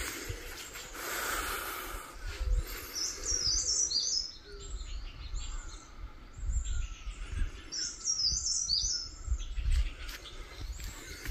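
A songbird singing, repeating a short run of quick, high chirping notes about every five seconds. Low rumbling bumps come and go underneath.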